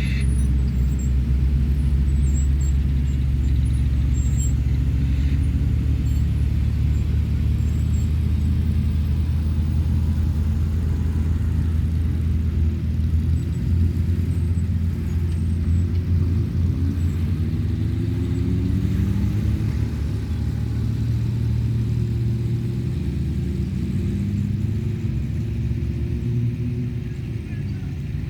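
Motor vehicle engine running steadily while driving, a low rumble whose pitch rises and falls a few times in the second half as the revs change.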